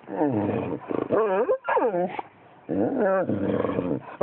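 Dog giving a run of whining, yelping cries, about four or five in quick succession, each rising and falling in pitch.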